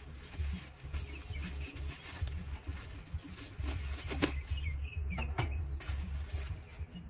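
Bubble-wrap packaging crinkling and rustling as it is pulled off and handled, in many short crackles, over a choppy low rumble of wind on the microphone.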